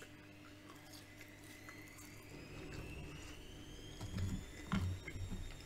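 A person chewing french fries, with soft wet mouth sounds and smacks, heaviest about four seconds in. A faint high tone rises slowly in pitch behind it.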